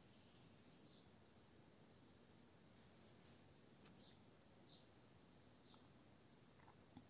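Near silence with faint high chirping of a small bird, about two short calls a second, some sliding downward. Two faint clicks, about four seconds in and near the end.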